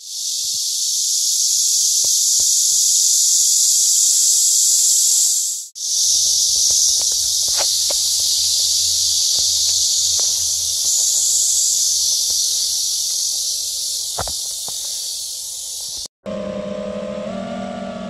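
Loud, steady high-pitched insect chorus, broken by a brief dropout about six seconds in. Acoustic guitar music takes over about two seconds before the end.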